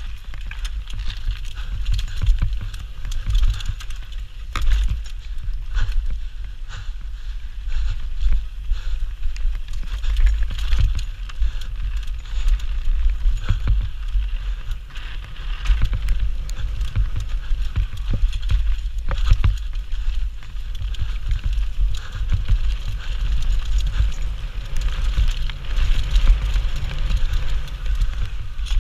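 Enduro mountain bike descending a dirt and gravel trail at speed, heard from a handlebar-mounted GoPro Hero 4: wind buffeting the microphone in a steady low rumble, tyres rolling over dirt and stones, and many quick knocks and rattles from the bike over bumps.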